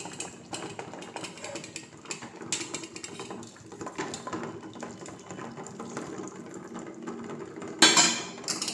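Metal spoon scraping and clicking against a stainless steel bowl while stirring thick melted chocolate in a double boiler, in irregular small clicks, with a sudden louder noise near the end as milk goes into the bowl.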